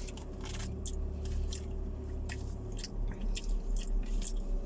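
Close-up chewing and eating noises with scattered small clicks, as plastic cutlery scrapes and taps on plastic food containers, over a low steady hum.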